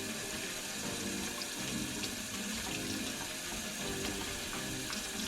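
Tap water running steadily into a sink and splashing over a plucked game bird as it is rinsed.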